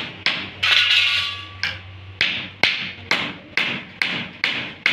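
Hammer striking a wooden frame in a steady run of sharp taps, about two a second, starting about two seconds in. A short scrape of wood is heard about a second in.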